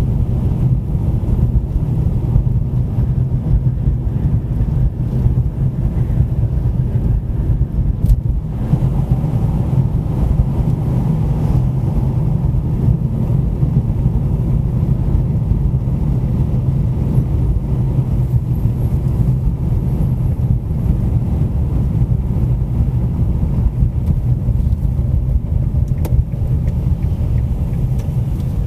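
Car driving on a city road: a steady low rumble of engine and tyre noise, with a sharp click about eight seconds in and another near the end.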